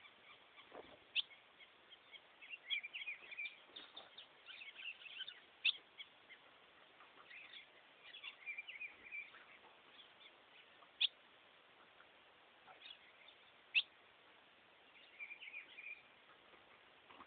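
Ultramarine grosbeak (azulão) calling: sharp single chip notes scattered through, with short bursts of quick twittering in between.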